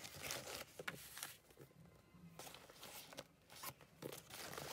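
Faint rustling, scraping and clicking of a nylon backpack being handled and opened, over soft background music.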